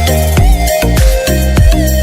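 Background electronic music with a heavy bass beat, about two and a half beats a second, under a repeating synth melody.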